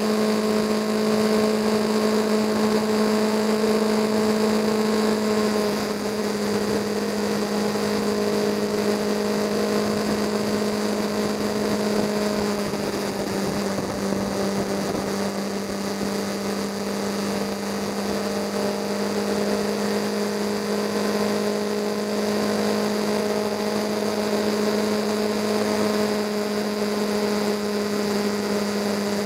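Motorcycle engine droning at a steady cruise over road and wind noise, its pitch shifting slightly a few times.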